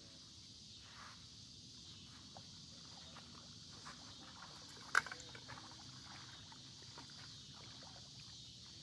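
Steady evening insect chorus, a high even hiss, with one sharp click about five seconds in followed by a few smaller clicks.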